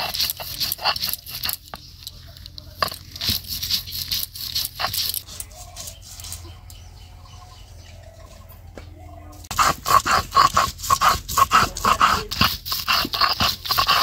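Soaked chana and matar dal being ground on a stone grinding slab with a stone roller (shil-nora): rhythmic rasping strokes of stone on stone, crushing the lentils to a coarse, grainy paste. The strokes fall quiet for a few seconds in the middle, then come back louder.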